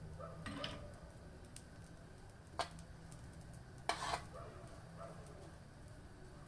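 Metal spoon stirring dry-toasting sesame seeds in a coated frying pan: a few short, faint scrapes and taps, about half a second in, near the middle and around four seconds in.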